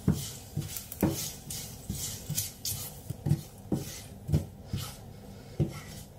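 Wooden spatula scraping and stirring around a non-stick frying pan toasting coconut flakes and garlic, in repeated short strokes about two a second.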